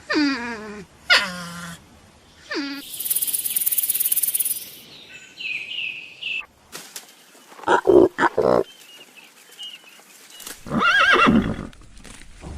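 A string of short, separate animal calls, one after another. It opens with two falling pitched cries, then a high hiss, a brief high call, a quick run of short pulses, and a wavering pitched call near the end.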